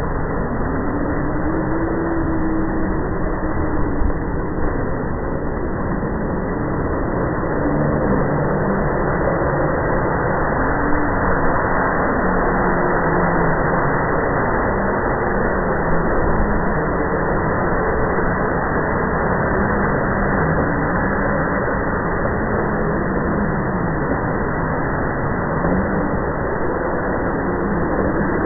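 A loud, steady rumbling drone with slow, wavering tones that glide up and down beneath it, the kind of unexplained 'strange sound in the sky' reported from Slovakia.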